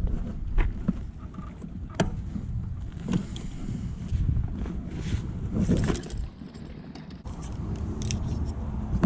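Handling noise: several sharp clicks and light rattling as an electric bike is stopped and parked and a fishing rod is handled, over a low wind rumble on the microphone.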